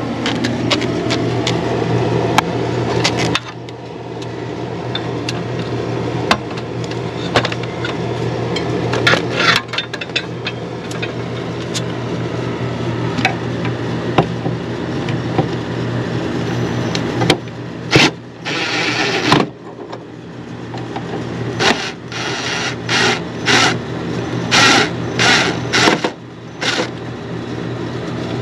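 Cordless drill-driver running in short bursts at the screws of a soffit floodlight fixture, with clicks and knocks of handling in between, over a steady mechanical hum.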